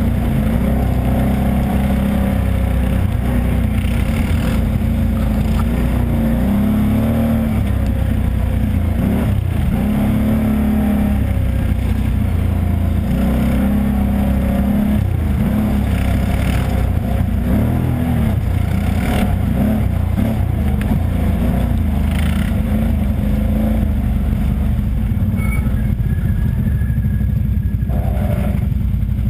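ATV engine running hard on board the machine, its pitch rising and falling as the throttle opens and closes, with occasional knocks and clatter from the machine going over bumps.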